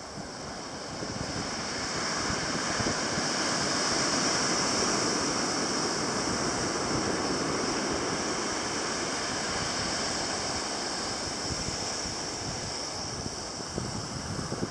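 Sea surf washing on the shore, with some wind: a steady wash of noise that swells over the first few seconds and then slowly eases off.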